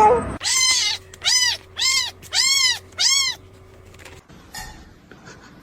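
A cat meowing five times in quick succession, each meow short and high, rising then falling in pitch.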